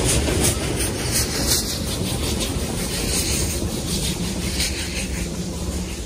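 Puffing Billy narrow-gauge steam train running over a timber trestle bridge and moving away: a rumble with irregular clattering knocks, fading gradually as it goes.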